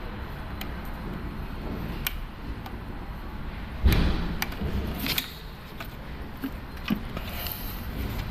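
Scattered clicks and knocks of metal parts being handled, with one heavier thump about four seconds in, over a steady low background rumble.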